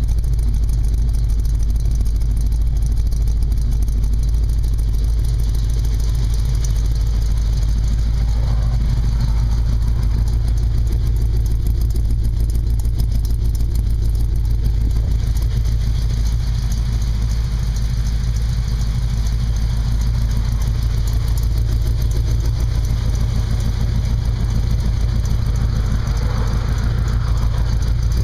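AMC 304 V8 idling steadily through a new dual exhaust with Hedman headers and MagnaFlow mufflers, heard close to the tailpipes, with a strong low rumble.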